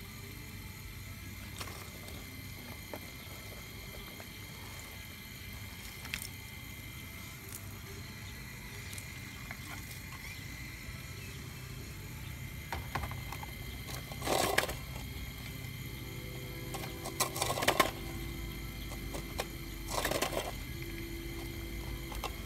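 Radio-controlled scale Cat 349 excavator working: a steady motor whine throughout, with the bucket scraping and chunks of shale clattering in three short bursts in the second half.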